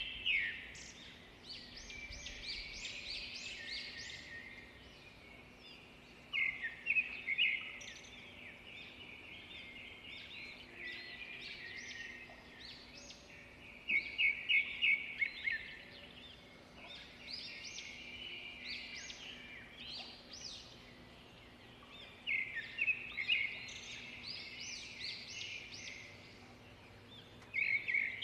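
A songbird singing: bursts of quick, high chirping notes, repeated every six to eight seconds.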